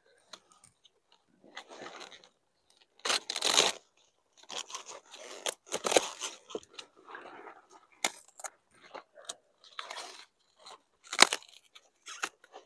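A cauliflower being harvested by hand: crisp crunching and tearing as the head is cut from its stem and the leaves are pulled off, in irregular bursts with a few sharp snaps.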